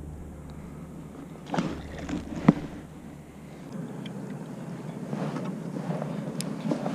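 A few sharp knocks and clicks of gear being handled in a kayak, the sharpest about two and a half seconds in, followed by a low, even rustling noise that grows a little toward the end.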